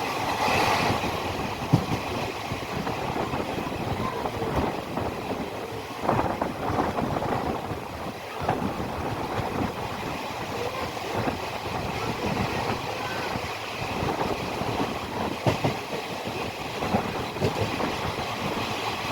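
Passenger train running along the track: a steady rumble with irregular clacks and rattles from the wheels and carriage.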